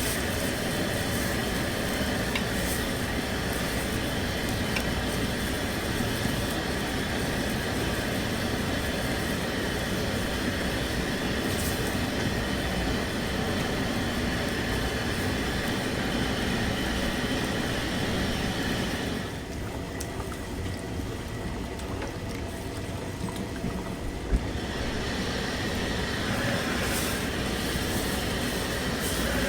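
Steady roaring noise of a commercial kitchen, dropping somewhat for several seconds about two-thirds of the way through, with one sharp click near the end.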